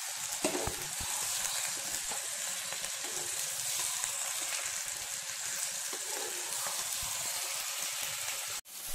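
Raw chicken pieces and onions frying in hot oil in a pan, turned over with a steel spatula: a steady sizzling hiss that drops out for a moment near the end.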